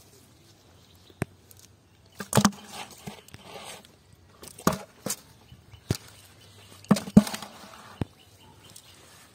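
Scattered sharp thumps and slaps, loudest about two and a half and seven seconds in, with some rustling between: live fish being handled out of a cast net on grass.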